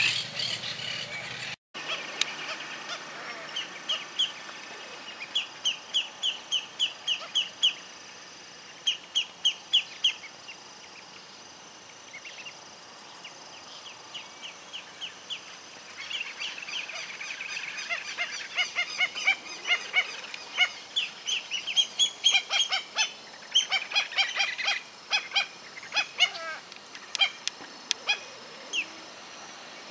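Rosy-billed pochard ducklings peeping: runs of short, high, slightly falling calls, several a second, coming in bouts and growing busier in the second half.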